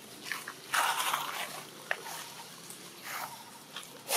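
Long-tailed macaques making short, noisy vocal sounds: the longest burst comes about a second in and a shorter one near three seconds, with a few small clicks.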